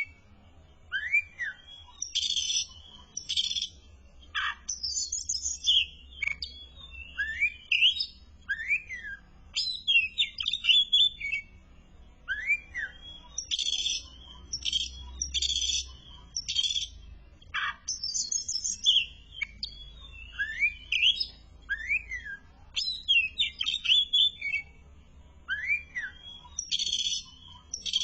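Oriental magpie-robin (kacer) singing loudly and without pause: short whistled notes that glide up or down, alternating with harsh, rasping notes, a new phrase every second or so.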